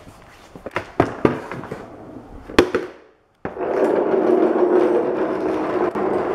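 Plastic mechanic's creeper knocking and clattering a few times as it is handled, then its casters rolling across a concrete floor in a steady rumble that eases off near the end as it slows.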